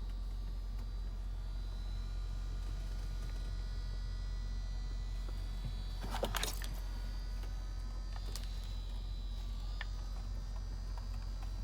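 Steady low hum with a faint high-pitched whine, and a brief crackle or handling noise about six seconds in.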